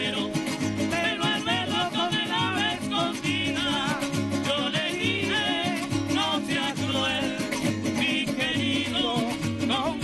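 Golpe tocuyano played live by a group of strummed cuatros and small guitars, with a steady low beat under it and voices singing a wavering melody.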